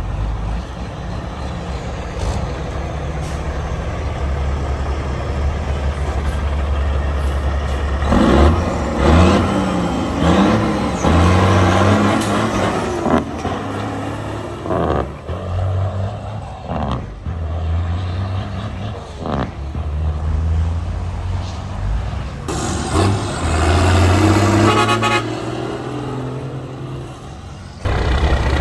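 Big-rig semi tractors' diesel engines running and accelerating hard as the trucks pull away one after another, with blasts of truck horns.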